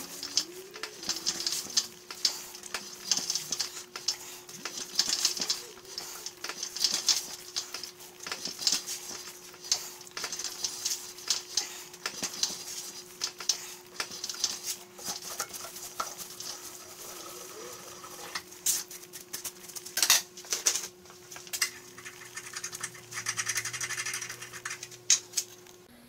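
Hand threading die in a die stock being turned on a threaded metal rod clamped in a bench vise: repeated metallic scraping and clicking strokes as the die cuts, with a few louder clicks about two-thirds of the way through.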